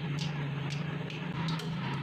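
Hot cooking oil in a wok crackling and spitting in short pops. Under it runs a louder low drone with a steady, slightly shifting pitch, like a motor running.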